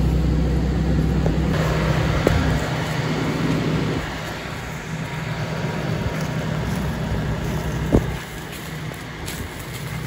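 Car engine idling steadily, loud and close for the first four seconds, then fainter as the microphone moves away from the car. A single sharp click about eight seconds in.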